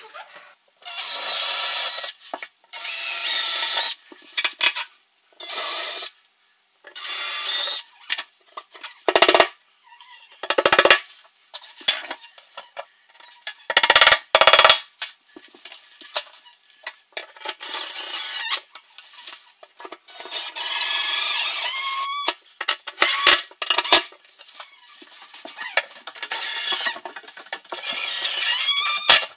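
Cordless drill run in bursts of a second or two into a wall, with several hammer blows in the middle, then the drill driving screws with a rising whine near the end as a metal shelf standard is fixed to the wall.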